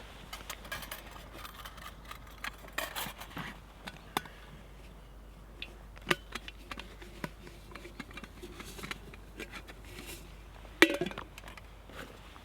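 Scattered small clicks and knocks at an irregular pace, with one sharper, louder knock about 11 seconds in.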